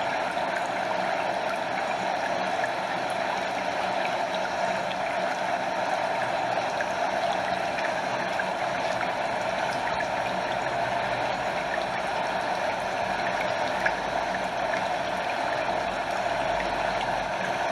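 Stream water flowing and gurgling over a small waterfall in a steady, even rush.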